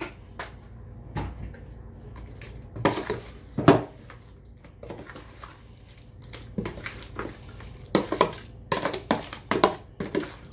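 Metal spoon knocking and scraping against a plastic bowl while salmon pieces and shrimp are stirred through a wet marinade. The knocks come irregularly, loudest a little under four seconds in, with a quick run of them near the end.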